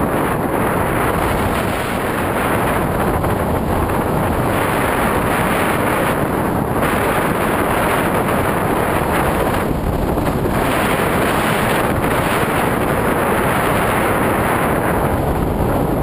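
Airflow in flight on a paraglider, blowing on the camera microphone: a loud, steady rush whose upper hiss swells and fades every few seconds as the air buffets.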